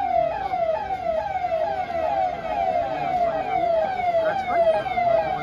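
Electronic vehicle siren on a police SUV sounding in quick falling sweeps of pitch, about two to three a second, repeating steadily.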